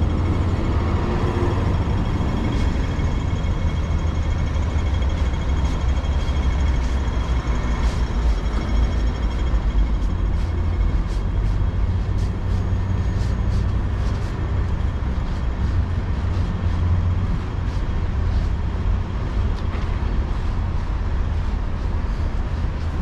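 Steady rumble of passing road traffic, heavy vehicles included, with no sharp events.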